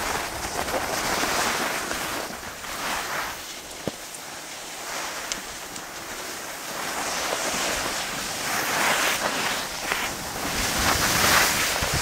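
Skis sliding and scraping over packed snow, with wind rushing on the microphone; the hiss eases in the middle and swells louder near the end, with a single short click about four seconds in.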